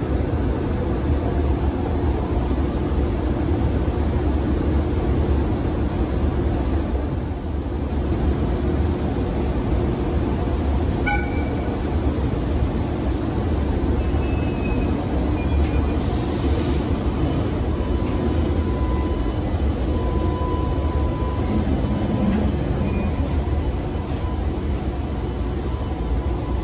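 EH500 electric freight locomotive starting its container train and drawing slowly past: a steady deep hum and rumble. A short hiss comes a little past halfway, and a thin steady high tone joins soon after.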